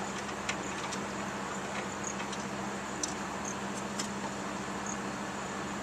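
Steady low hum of outdoor machinery or traffic, with a few faint light clicks and taps.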